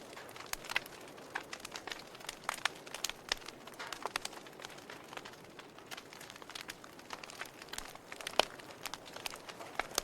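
Fire in a fireplace crackling: irregular sharp pops and snaps over a soft steady hiss, with one louder pop about eight seconds in.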